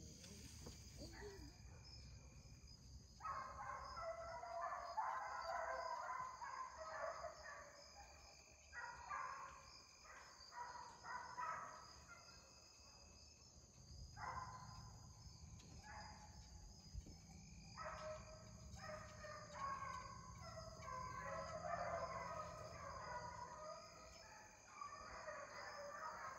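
A pack of deer hounds baying in the distance while running a deer. Their voices overlap in several long bouts, each a few seconds long, with short breaks between them.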